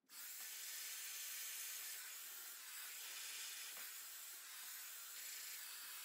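Dyson Supersonic hair dryer blowing, a steady airy hiss as it dries a section of hair held on a round brush.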